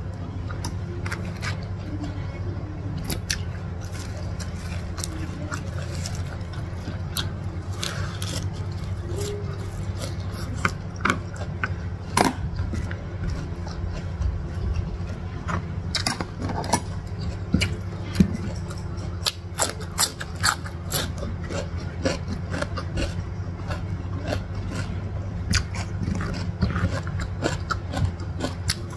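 Close-miked eating sounds: chewing, lip smacks and the crackle of cooked prawn shells being peeled by hand, with many short sharp clicks over a steady low hum.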